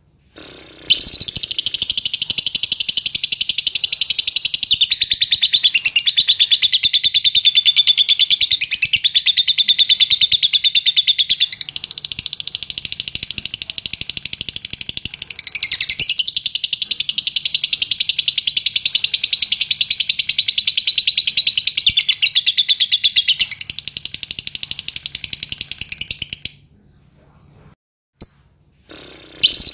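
Fischer's lovebird singing one long, unbroken rapid chattering trill, the 'ngekek' song prized in lovebird contests. It starts about a second in, softens for a few seconds midway and again later, stops near the end with a single short chirp, then starts again just before the end.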